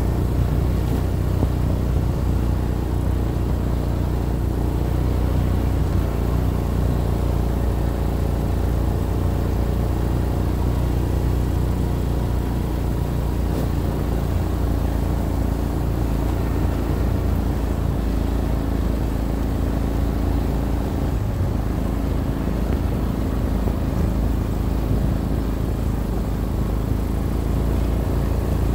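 ATV engine running at a steady, even speed, a constant low drone with no revving, as the machine breaks trail through fresh snow.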